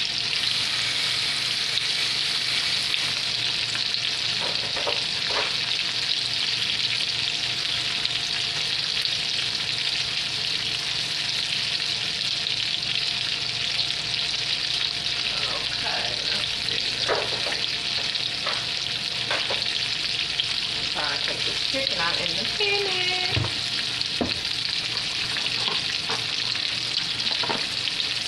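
Breaded chicken strips frying in hot oil in a skillet: a steady sizzle throughout. A few light clicks and knocks of kitchenware come in about halfway through and stop a few seconds before the end.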